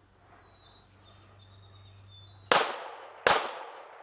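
Two semi-automatic pistol shots about three-quarters of a second apart, a little over halfway in, each followed by a short echo that dies away.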